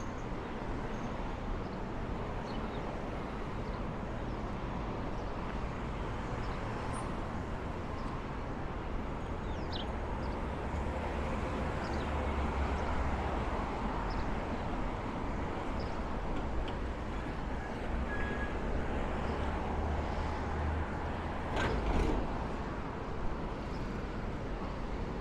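City street traffic noise. A deep engine rumble from a passing vehicle swells from about ten seconds in and falls away a few seconds before the end. A single sharp knock follows near the end.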